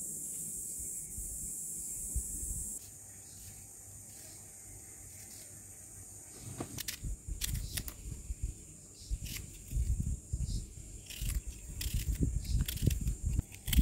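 A knife slicing a red onion held in the hand: irregular crisp crunching cuts with soft knocks, starting about six seconds in and coming more often toward the end. Before that there is a steady high hiss that drops away about three seconds in.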